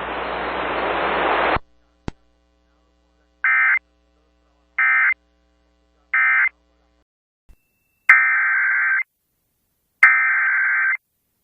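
Radio hiss that cuts off about a second and a half in, followed by a click. Then come three short bursts of warbling Emergency Alert System data tones, the end-of-message code closing the alert. Near the end, two longer bursts of the same screeching digital tones follow: the header code that opens the next alert.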